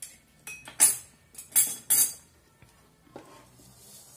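Metal kitchen utensil clinking against a ceramic plate and an aluminium saucepan: a series of short, sharp clinks, the loudest coming in quick succession about one to two seconds in.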